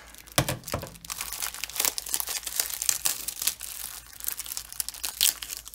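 Clear plastic packaging of diamond painting kits crinkling and rustling in irregular bursts as hands pull the taped-together packs apart, with a light knock about half a second in.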